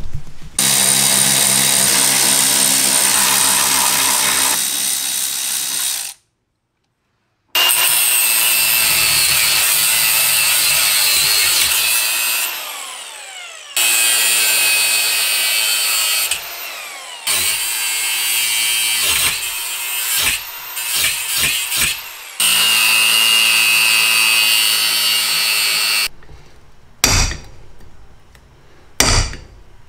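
Angle grinder cutting the steel studs of a Porsche 944 upper shock mount held in a vise, in several long runs, its pitch falling each time it winds down. Near the end, two sharp hammer blows on the mount.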